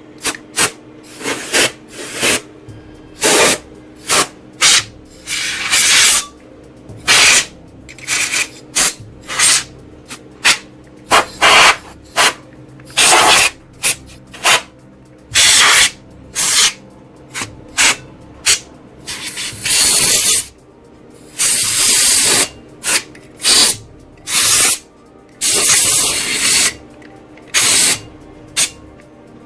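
Can of compressed air duster blowing dust out of the computer parts in many short, sharp blasts of hiss, with a few longer blasts near the end.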